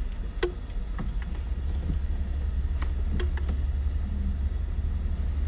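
Steady low rumble of a car heard from inside the cabin, with a few faint clicks.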